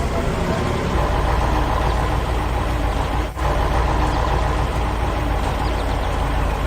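Heavy vehicle engine running steadily with a low, dense rumble, broken by a short dip about three seconds in.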